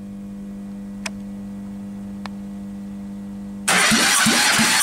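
Mitsubishi 4A91 1.5-litre four-cylinder engine being cranked on its starter for a compression test of the third cylinder. At first there is only a low steady hum with two faint clicks. Near the end the starter cuts in suddenly and cranks loudly, with a regular chug of about four compression strokes a second.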